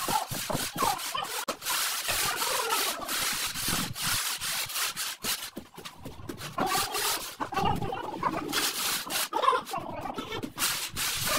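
A straight screed bar and gloved hands scraping across a damp sand-cement floor screed in many short, rough strokes.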